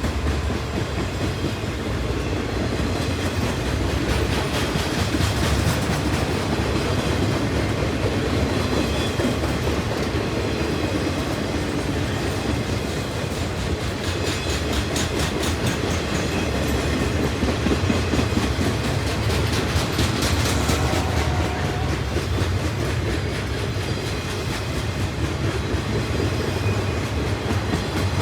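Cars of a CPKC welded-rail train rolling past: a steady rumble with runs of rhythmic wheel clicking.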